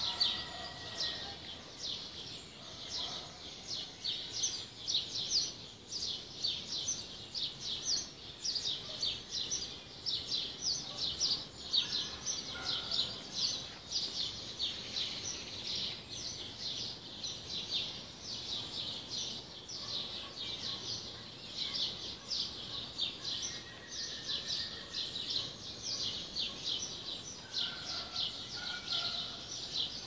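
Morning chorus of many small birds chirping at once: a dense, continuous stream of high, quick chirps, with a few lower whistled notes near the end.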